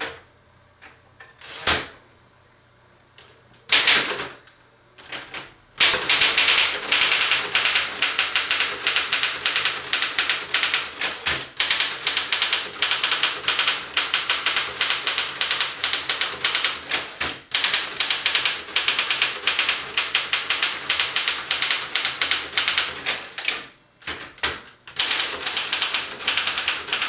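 1930 Underwood No. 5 manual typewriter being typed on: a few scattered clicks, then a long fast run of typebars striking the platen, a brief pause near the end, then more typing.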